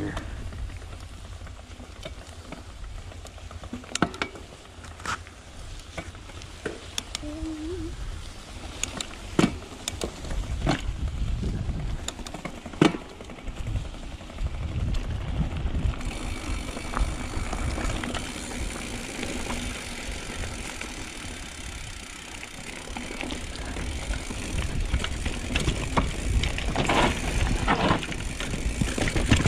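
Mountain bike riding fast down a dirt trail: wind rumbling on the microphone and tyres rolling over the ground, with scattered sharp knocks and rattles as the bike hits bumps. A brighter hiss comes in about halfway.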